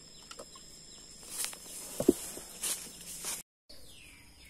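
Digging in forest soil and leaf litter with a wooden-handled digging tool: two scraping strikes and a sharp thump about two seconds in, over a steady high insect drone. The sound cuts out briefly near the end.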